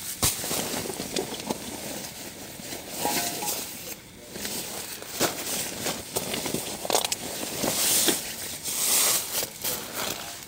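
Plastic bags and nylon stuff sacks rustling and crinkling as camping gear is handled and repacked, with scattered small clicks and knocks.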